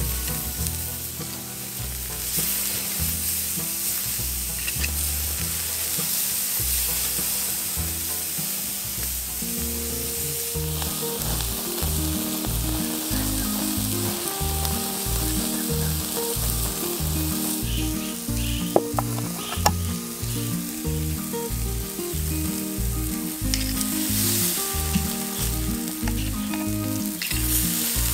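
Ribeye steaks sizzling steadily on a grill over wood coals. Background music with a steady beat comes in about a third of the way through, and there are a couple of sharp clicks a little past the middle.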